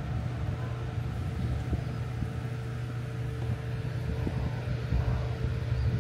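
Steady low machine hum with a faint steady whine above it, and uneven low buffeting on the microphone.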